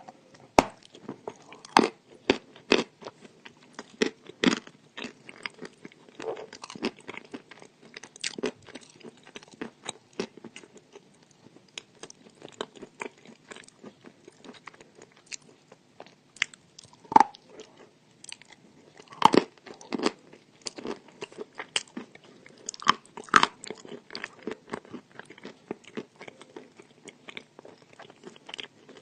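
Crunchy chalk being bitten and chewed close to the microphone: a long run of sharp, irregular crunches and crackles.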